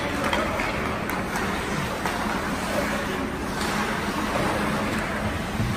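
Ice hockey rink noise: skates scraping and carving on the ice with a few light stick or puck clicks, over a steady low hum.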